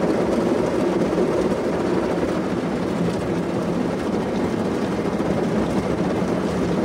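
Automatic car wash heard from inside the car's cabin: water spray and rotating wash brushes working over the body and glass in a steady, even rush of noise.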